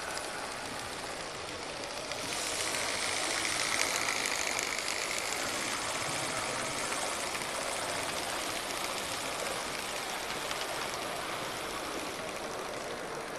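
Small brass live-steam model locomotive running on the layout, giving off a steady hiss of steam that grows louder about two seconds in.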